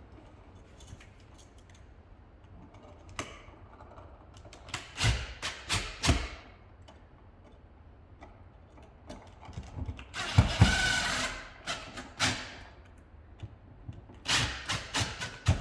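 Clicks, knocks and scrapes of an electrical outlet being pushed into its wall box and fastened. A louder rasping burst lasts about two seconds partway through.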